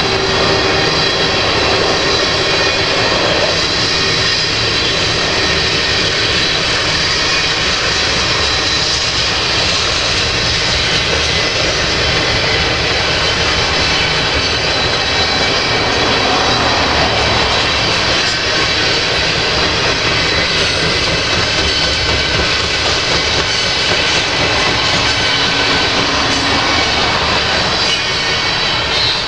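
Freight train of tank cars rolling past close by: a steady, loud rumble and rattle of steel wheels on the rails, with thin high ringing tones over the top.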